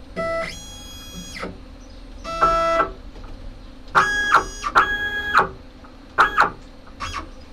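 Stepper motors of a Stepcraft CNC router whining in about six short jogging moves, each a steady electronic-sounding tone that starts and stops abruptly, the pitch differing from move to move as the end mill is brought into position.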